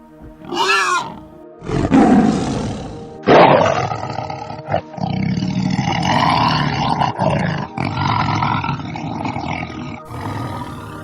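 Calls of a large wild animal over background music: a short pitched call about half a second in, then a harsh rasping call, then a long rough call from about three seconds in to near the end.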